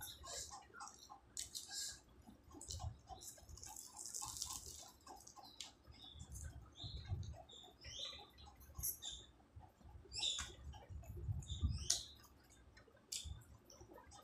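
Chewing a samosa: irregular crackles of the fried pastry and wet clicks and smacks of the mouth.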